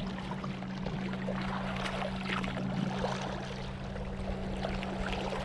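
Small water sounds lapping and trickling against the rocky shore, a crackly hiss with many small splashes, over a steady low hum.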